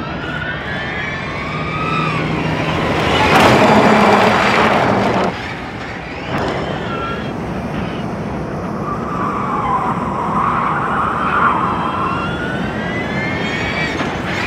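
Electric rallycross cars racing past, their motors whining with a pitch that rises and falls as they accelerate and brake. The sound is loudest with a rush from about three to five seconds in, then cuts off suddenly, and a wavering, climbing whine follows.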